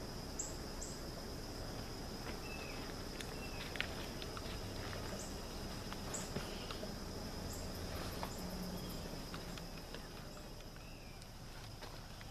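Insects, crickets by their sound, trilling in one steady high note, with scattered footsteps and a few short chirps over it.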